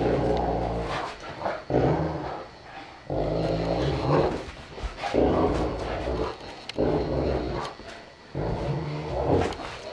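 Saint Bernards growling in play while tussling over a toy: rough, low growls about a second long, one after another every second or so.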